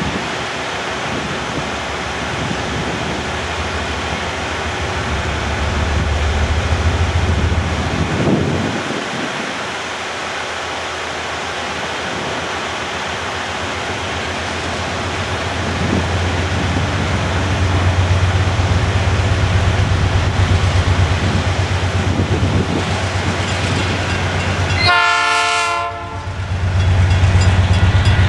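Three GE C44-9W diesel locomotives hauling a heavy rock train, engines running with a steady low rumble under the clatter of the train on the rails. Near the end a short horn blast sounds, then a level-crossing bell starts ringing.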